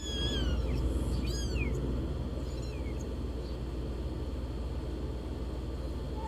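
Newborn kittens mewing: several thin, high calls that fall in pitch, bunched in the first second and a half, then a few fainter ones, over a steady low hum.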